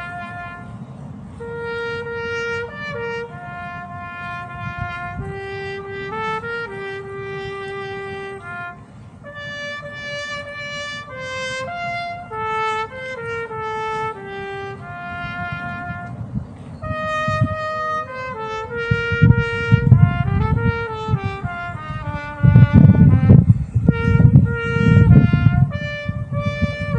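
Solo trumpet playing a slow melody of held notes, one line alone. From about two-thirds of the way in, a low rumbling noise swells up under it and becomes the loudest sound near the end.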